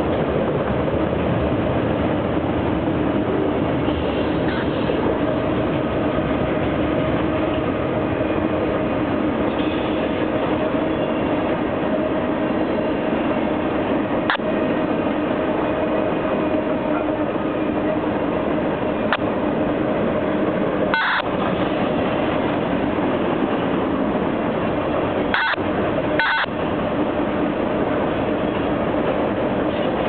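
Freight cars of CSX train Q410 rolling steadily over a trestle bridge: a continuous rumble of wheels on rail with a steady hum, broken by a few sharp clicks in the second half.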